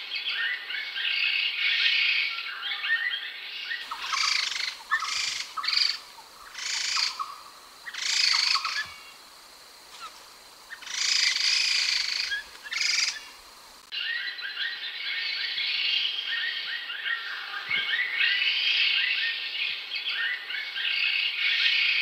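White-cheeked laughingthrushes (khướu đầu xám) singing a dense run of quick whistled and chattering phrases. From about four seconds in to about fourteen seconds, the song comes in separate phrases with short pauses, then turns dense again.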